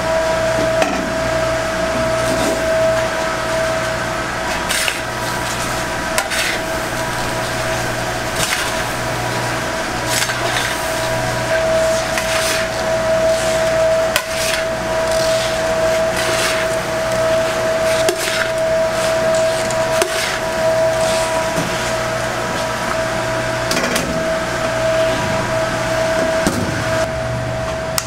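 Motor-driven stainless-steel stir-fry kettle running with a steady whine over a low hum, its agitator churning the load around the pan. Irregular clicks and knocks of food and spatula scraping against the metal sound throughout, and the whine stops just before the end.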